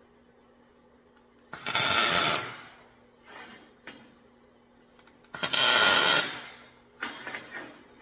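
MIG welder laying tack welds on horseshoe steel: a crackling sizzle about a second long, a second one a few seconds later, and a shorter, choppier one near the end.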